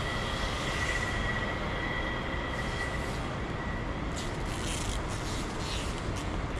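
Train running: a steady rumble with a thin high whine that fades out about three seconds in, then scattered clicks and rattles.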